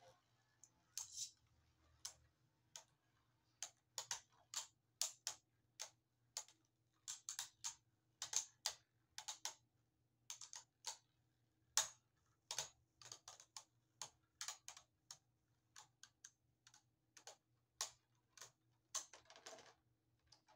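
Two Beyblade Burst spinning tops battling in a plastic stadium, clacking against each other in quick, irregular clicks over a faint steady hum.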